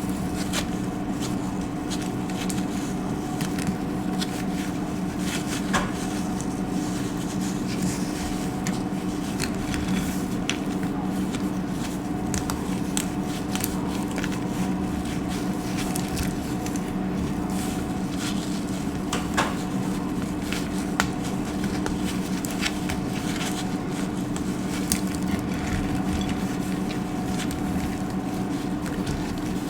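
Dry soap being crushed and crunched: a dense run of small crackles and snaps, with a few sharper cracks, over a steady low hum.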